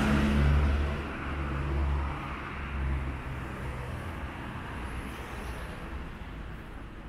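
Street traffic: a motor vehicle's engine, loud at first just after passing close by, fades away over the first three seconds. Steady traffic noise follows.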